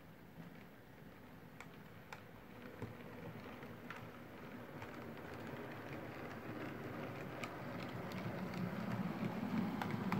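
OO gauge model diesel multiple unit running along the track, its rumble growing steadily louder as it comes nearer, with occasional faint clicks.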